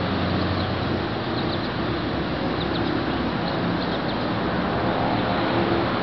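Steady outdoor background rumble and hiss with a low hum, of the kind road traffic makes, and a few faint, short high chirps over it.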